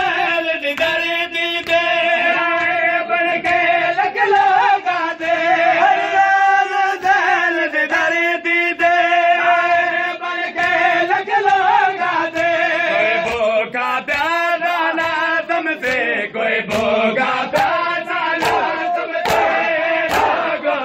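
A noha chanted by men's voices in long, wavering held notes, over the regular sharp slaps of matam: mourners striking their bare chests with open hands. The slaps grow more distinct in the second half.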